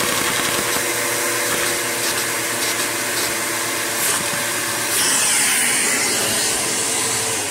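Overhead-cam LEGO vacuum engine running fast on a vacuum cleaner's suction: a steady hiss of rushing air with the rapid clatter of the engine, its speed shifting as it is adjusted. It is being tried at a slower idle, which this engine does not hold well because it needs constant vacuum to hold its valve up.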